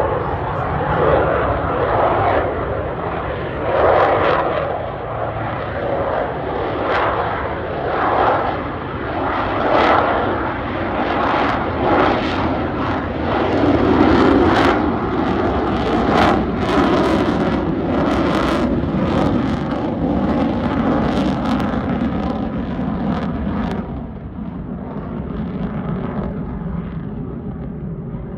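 Lockheed Martin F-35A Lightning II jet fighter's single Pratt & Whitney F135 afterburning turbofan roaring in a flying display, with a rough, crackling edge in the middle of the pass. The noise eases somewhat near the end.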